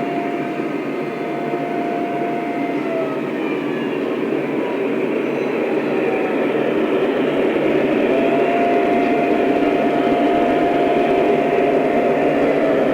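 Lionel O-scale model train running on its track: a steady rolling rumble of wheels and motors that grows a little louder in the second half. A held high tone sounds twice, for a few seconds at the start and again from about two-thirds of the way in.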